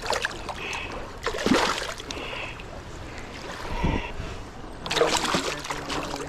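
Water splashing in irregular bursts.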